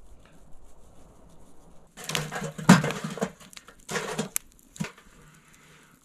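Wood fire crackling in a steel fire pit, with loud bouts of knocking and scraping, loudest about three seconds in, as the burning wood is poked and shifted with a stick.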